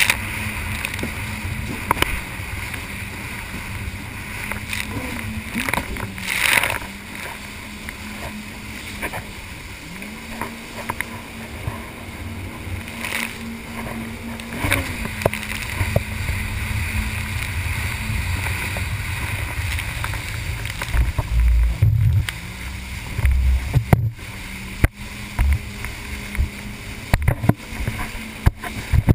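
Jet ski engine running under way, a steady hum that rises in pitch a few times as the throttle changes, under constant wind and water-spray noise. Heavy low thumps and short knocks come in the second half.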